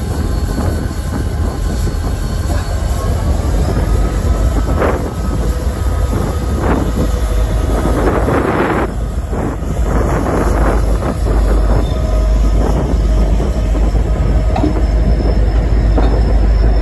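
Diesel-electric locomotives running light and rolling slowly past at close range, engines rumbling deeply. Thin wheel squeal and occasional knocks from wheels over the rails ride on top.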